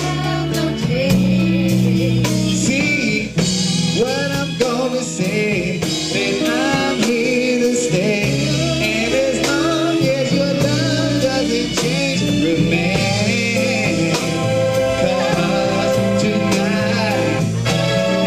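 A man singing live with a band of drum kit and electric bass or guitar, his voice sliding and bending through the notes.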